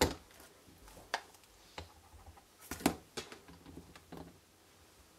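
A few sharp plastic clacks and taps as the hinged clear plate of a Stampin' Up! Stamparatus stamping platform is brought down onto the card and lifted away again, the loudest right at the start and about three seconds in.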